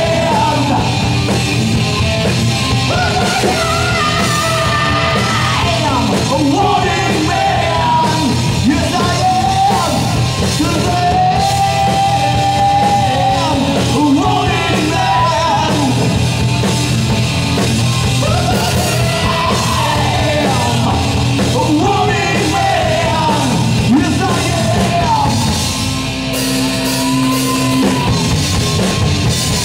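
Live rock band playing loud, with a singer belting and shouting the vocals over drums and amplified instruments. Near the end the low end drops back for a few seconds while the band keeps playing.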